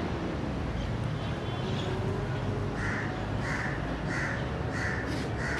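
An animal calling five times in quick succession, short cries about two-thirds of a second apart in the second half, over a steady low rumble.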